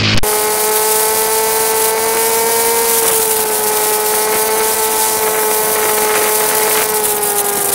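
Honda Grom MSX125's 125 cc air-cooled single-cylinder four-stroke engine held at high, nearly steady revs while riding, its pitch dipping slightly about three seconds in and easing down near the end. A loud steady hiss of wind and rain spray runs underneath.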